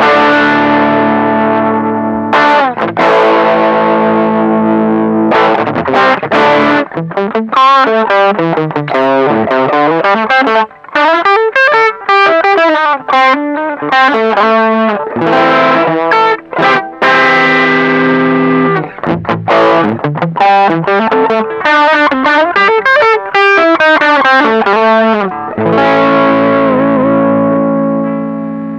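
Electric guitar played through a TC Electronic Dark Matter distortion pedal, its bass knob set at twelve o'clock: distorted chords left to ring and fade, alternating with quick single-note riffs.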